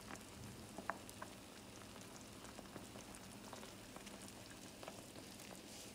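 Pork adobo simmering in soy sauce and water in a skillet: a faint, even sizzle of bubbling liquid with scattered small pops.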